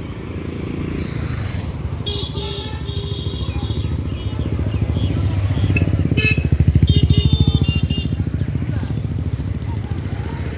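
A vehicle engine running close by with a fast, even firing pulse, growing louder to a peak about two-thirds of the way through and then easing off, as when it passes.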